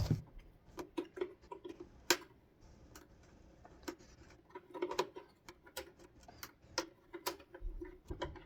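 Irregular small clicks and taps of tools and plastic parts as a car headlight's housing is taken apart, with screws and clipped pieces being worked loose.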